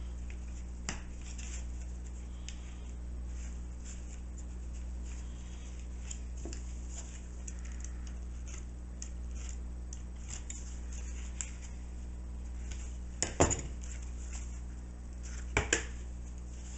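Small clicks and scrapes of hands and a small hand tool working thin wires on a cardboard shoebox lid, with a few sharper clicks near the end. A steady low hum runs underneath.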